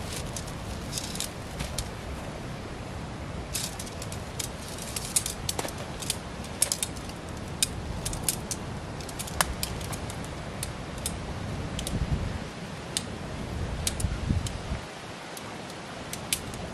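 Shock-corded tent pole sections clinking and snapping into each other as the pole is unfolded and joined, a scatter of sharp irregular clicks over a steady low rumble.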